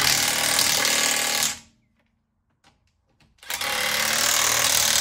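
Impact wrench hammering on a car's wheel bolts in two bursts, the first about a second and a half long, the second starting about three and a half seconds in.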